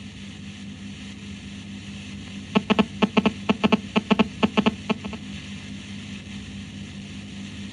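Steady electrical hum and hiss, with a quick run of about a dozen sharp clicks, about five a second, starting some two and a half seconds in and stopping after about two and a half seconds.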